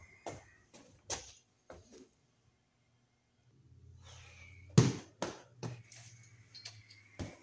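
Scattered knocks and footsteps, with one loud knock about five seconds in. A low steady hum comes in about halfway through, while the circuit breakers are being shut off.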